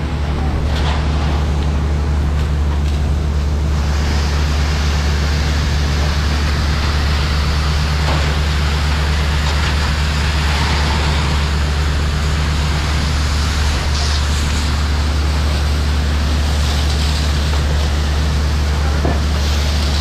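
Hose nozzle spraying a steady stream of water, a continuous hiss, over the constant low drone of a fire engine's pump engine running.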